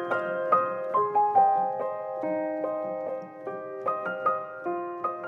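Background music: a gentle piano melody, one note after another at about two notes a second.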